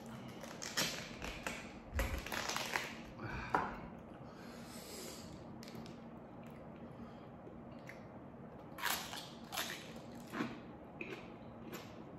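Raw red (purple) cabbage leaves crackling as they are torn by hand, in a few short crisp bursts, with quieter eating sounds between.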